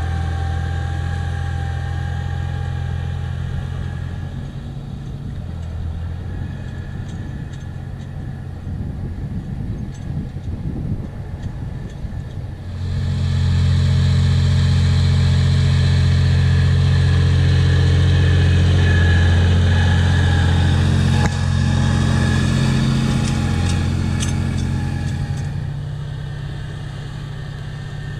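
Massey Ferguson 2640 tractor's six-cylinder diesel engine running steadily under load as it pulls a land leveler. About halfway through it grows much louder as the tractor passes close by, then it fades as the tractor draws away.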